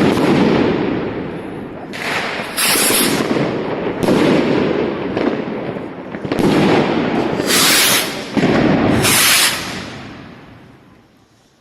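Consumer firework battery going off: a run of loud bangs, roughly one every one to two seconds, each rolling away in a long echo, some with a sharp crackling hiss on top. It fades out near the end as the volley finishes.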